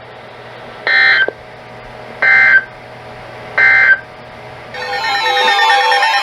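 EAS end-of-message data bursts: three short digital screeches about 1.3 s apart, the SAME 'NNNN' code that closes a severe thunderstorm warning broadcast. Near the end a loud, layered electronic sound with sweeping, wailing pitches begins.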